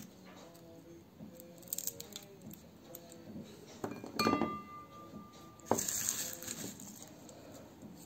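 A small glass dish clinks as a peeled garlic clove is put into it, and the clink rings on as one steady tone for about a second and a half until a sharp tap cuts it off. Quieter small scrapes and taps come from garlic being peeled with a knife over an enamel bowl.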